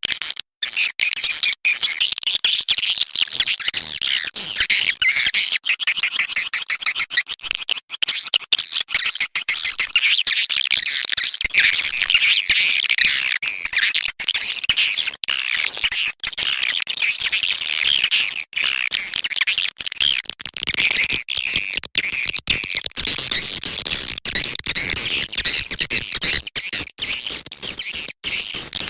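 Swiftlet call recording: dense, unbroken high-pitched chattering and twittering of many swiftlets, with many very brief dropouts. This is a lure sound played to call swiftlets into a swiftlet house.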